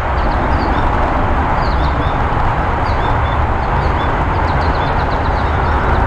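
A steady roar of vehicle noise, with small birds chirping faintly and high over it, and a quick run of chirps about four to five seconds in.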